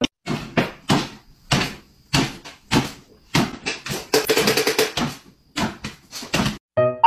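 A dog jumping up and down on its hind legs on a hardwood floor: an irregular run of thumps and paw taps as it lands, two to three a second, some landing in quick pairs.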